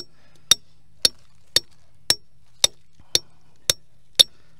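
A hammer driving a fence grounding rod into the ground: steady metallic strikes about two a second, each with a short bright ring.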